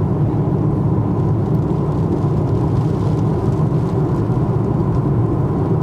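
Steady low noise of a moving car, unchanging throughout, with a faint steady whine above it.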